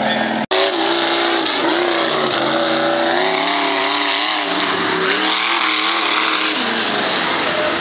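Lifted 4x4 mud truck's engine revving up and down as it tears through a mud pit, tires churning the mud, then fading as it pulls away. A sudden break in the sound about half a second in.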